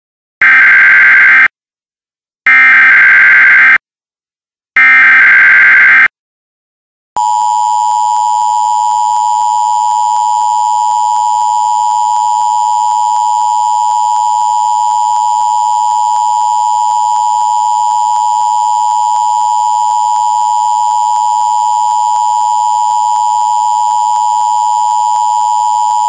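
Emergency Alert System tones. Three roughly one-second bursts of the SAME digital header data come first, then about seven seconds in the EAS attention signal starts: a steady two-tone sound of 853 and 960 Hz sounding together, which announces the start of an emergency alert message.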